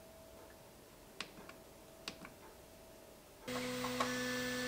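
A few soft clicks of the Bambu Lab P1P 3D printer's control-pad buttons. About three and a half seconds in, the printer starts running with a steady hum holding several steady tones, as it begins its pre-print preparation.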